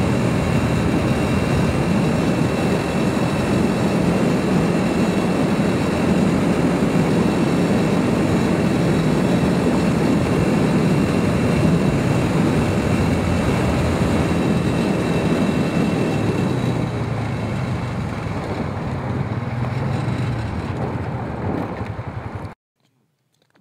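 Four-wheeler (ATV) engine running steadily at riding speed, with a dense low rumble from travelling across lake ice. The sound cuts off suddenly near the end.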